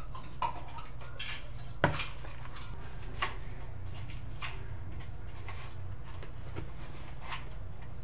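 A few scattered clinks and knocks of cookware and kitchen things being handled, the sharpest about two seconds in, over a steady low hum.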